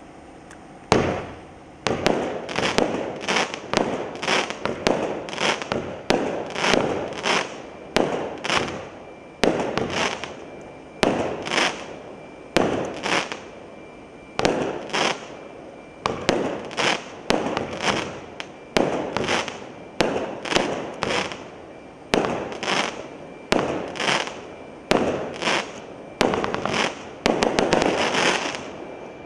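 Consumer firework cake firing a volley of about thirty shots at roughly one a second, each a sharp launch pop followed by a burst of crackling stars. The shots come in a quicker run near the end as the finale.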